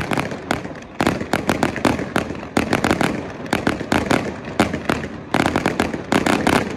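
Fireworks display going off: a dense, rapid crackle of bangs and pops, many a second, from low-bursting shells and rising comets.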